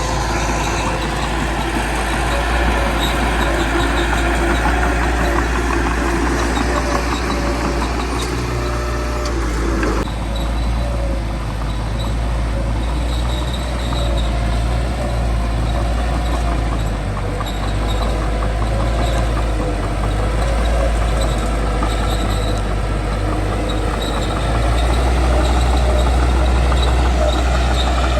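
Small crawler bulldozer's diesel engine running steadily with a deep rumble. The sound changes abruptly about ten seconds in and gets louder near the end.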